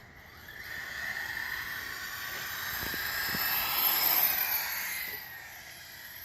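Converted Ofna Mutilator RC truck running, its electric motor and drivetrain whining, building up over the first four seconds, then fading away about five seconds in.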